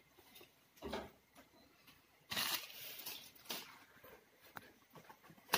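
Faint, scattered rustling and light taps, with one longer rustle about two seconds in.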